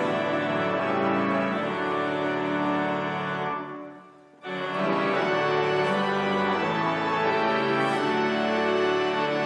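Organ playing slow, sustained chords. About three and a half seconds in the music fades out, then starts again abruptly about a second later.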